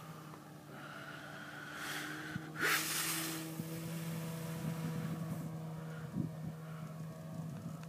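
Brushless electric motor and large two-blade propeller of a 74-inch Edge aerobatic model plane droning steadily in flight, its pitch shifting a little, with a loud rush of noise swelling and fading about two to three seconds in.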